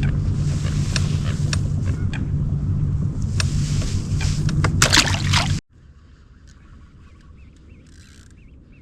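A boat motor running steadily with a low, even hum and scattered sharp clicks. It cuts off abruptly just over halfway through, leaving a quiet background with faint high chirps.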